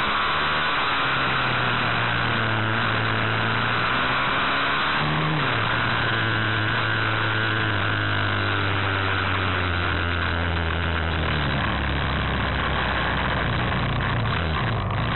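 Pit bike's small single-cylinder engine running at steady revs through the corners, its note stepping down about a third of the way in and again past the middle, then wavering near the end as it slows.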